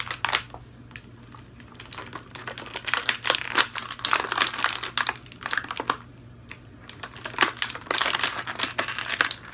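Plastic and cardboard action-figure packaging crinkling and clicking as it is handled and opened, in two bouts of a few seconds with short pauses between.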